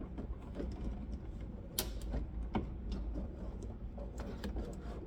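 First-generation Honda CRX door card being slid onto the door: scattered light clicks and rubbing of the trim panel against the door, with two sharper clicks about two seconds in.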